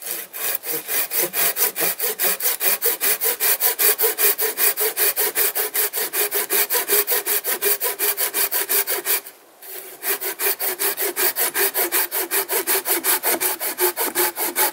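A small hand saw cutting through a branch of fallen oak in rapid, even back-and-forth strokes, several a second. The sawing stops briefly about nine seconds in, then resumes at the same pace.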